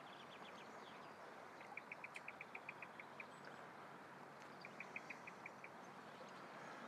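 Faint bird calling: two quick runs of short, evenly spaced high notes, the first of about nine, the second of about six, over a faint steady hiss.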